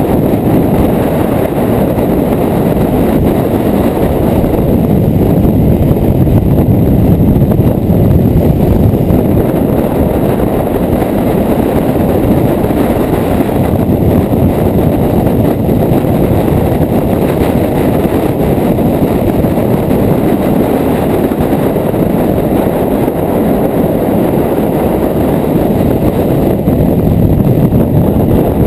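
Honda CRF250L single-cylinder motorcycle riding at speed: a loud, steady rush of wind on the microphone mixed with engine and road noise.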